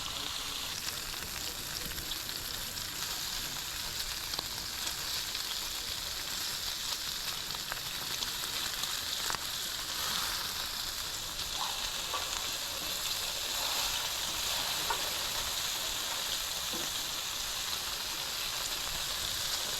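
Bacon frying on a grill: a steady sizzle with a few small pops.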